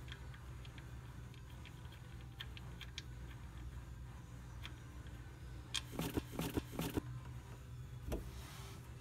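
An ATV's oil drain plug being turned out by hand, with faint small ticks, then a quick cluster of metal clicks and rattles as the plug comes free. Near the end, engine oil starts pouring from the drain hole into a plastic jug, with a soft steady hiss; a low hum sits underneath throughout.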